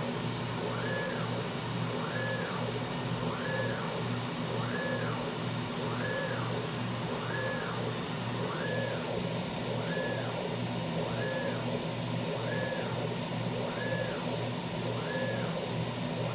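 Maxcut M1100 vertical machining centre's axis drives whining in a steady repeating cycle, rising in pitch, holding, then falling about once every 1.3 seconds as the face mill is stepped against the Renishaw TS27R tool-setting probe, over a steady low machine hum.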